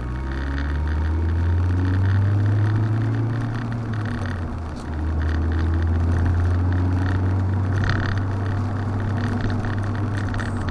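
In-cabin sound of a Mazda MX-5 (ND Roadster) four-cylinder engine pulling steadily under way, with a steady hiss of tyres on the wet road. About four and a half seconds in the engine note dips briefly and settles at a new pitch, as at a gear change.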